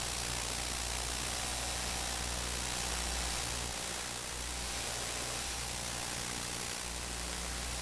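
Natural gas compressor station machinery giving a steady low drone under a constant hiss.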